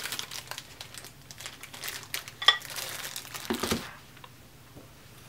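Plastic bag crinkling and rustling as it is handled, with a sharp ringing click about two and a half seconds in and a knock about a second later.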